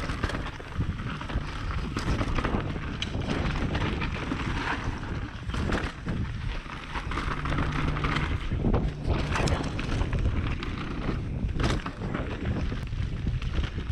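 Mountain bike descending a dirt singletrack: wind buffets the GoPro's microphone while the tyres roll over dirt and fallen leaves, and the bike rattles over bumps in scattered sharp clicks and knocks.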